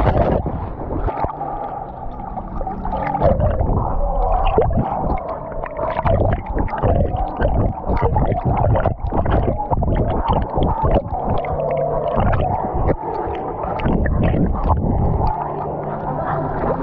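A splash of a dog hitting the pool, then muffled water sloshing and gurgling around an action camera strapped to the swimming dog, much of it heard with the camera underwater.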